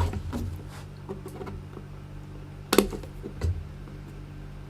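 Light clicks and taps of hands handling a ukulele while a string pickup is slid under its loosened strings at the bridge, the sharpest knock a little under three seconds in and a duller thump soon after, over a steady low hum.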